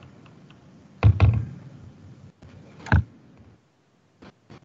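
Two dull knocks about two seconds apart, the first about a second in and a little drawn out, with a few faint clicks near the end.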